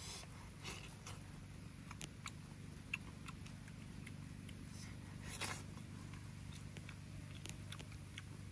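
Faint clicks and crackles of grilled fish being pulled apart by hand and eaten, with a slightly louder crackle about five seconds in, over a steady low background hum.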